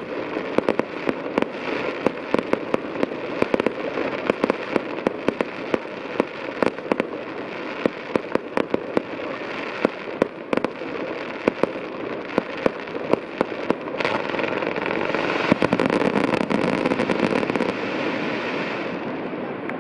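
Fireworks display: a rapid, irregular run of bangs and crackling from bursting shells, thickening into an unbroken crackle about two-thirds of the way through and dying down near the end.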